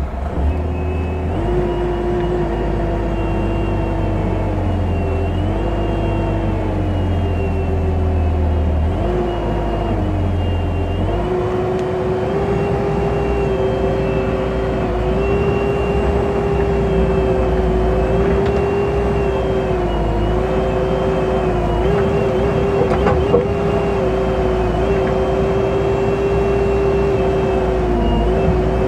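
Bobcat 435 mini excavator's diesel engine running steadily while the arm and boom are worked, its pitch dipping briefly now and then as the machine moves. The hydraulics are working again after a new drive coupler for the main hydraulic pump.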